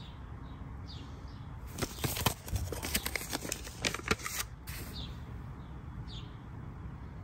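Paper seed packet crinkling and tearing open, with a quick run of crackles for about two and a half seconds in the middle as the tomato seeds are shaken out. A few short bird chirps sound in the background.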